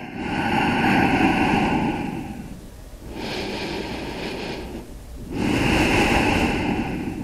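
A man's slow, deep audible breathing in a resting yoga pose: three long breaths of about two seconds each, the first and last louder, the middle one quieter and hissier.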